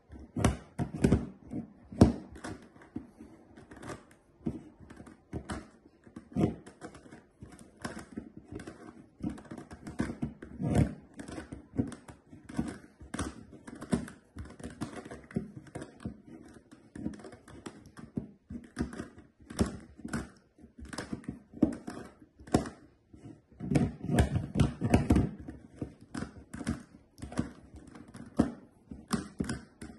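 Plastic GAN Megaminx being turned one-handed on a wooden tabletop: quick, irregular clicking and clacking of its faces turning, with a busier flurry of turns near the end.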